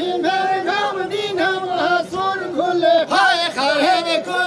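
Men singing a Kurdish dengbêj folk song, drawn-out held notes with quick wavering ornaments and bends between them.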